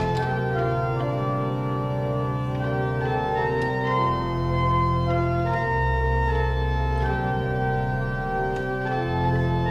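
Church organ playing slow, sustained chords over a held bass note, the chords changing every second or so.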